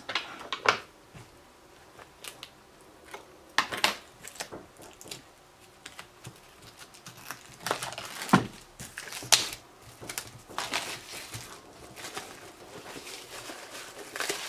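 Clear plastic wrapping on a paper pad crinkling and rustling as hands handle it and open it, in short irregular rustles with a few sharper crackles, busier in the second half.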